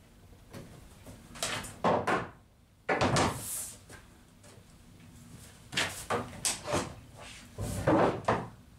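Pieces of timber, wooden props and a curved batten, handled and knocked against each other and against a fibreglass boat hull: several short bursts of clattering wooden knocks with quieter gaps between, and a longer scraping rush about three seconds in.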